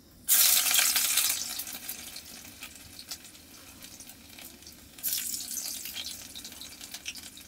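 Garlic dropped into hot oil in a kadai sizzles loudly at once, then dies down over a second or so. The frying flares up again about five seconds in as the pan is stirred with a ladle.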